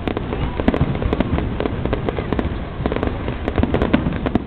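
Aerial fireworks going off: a dense, unbroken run of bangs, pops and crackles from bursting shells.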